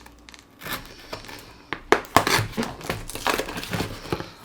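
Cardboard shipping box being opened by hand, its flaps and packing crinkling and rustling, with a few sharp clicks, the loudest about two seconds in.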